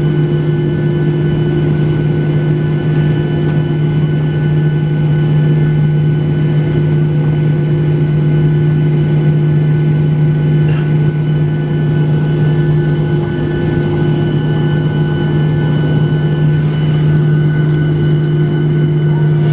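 Steady drone of a Boeing 737-800 heard from inside the passenger cabin: even rushing noise with a constant low hum and a few steady higher whines.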